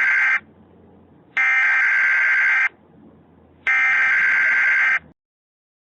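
Emergency Alert System SAME header: buzzy digital data bursts of two alternating tones. The end of one burst is followed by two more, each a little over a second long and about a second apart, with faint hiss and hum in the gaps. This is the coded header that opens an emergency alert broadcast.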